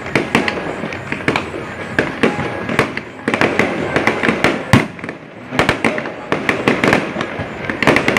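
Fireworks display: a rapid, irregular string of sharp bangs and crackles from bursting shells, with the loudest bang about two-thirds of the way through.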